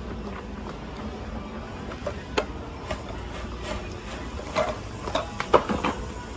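Scattered light knocks and clatter over a steady low background hum, the loudest knock a little past the middle.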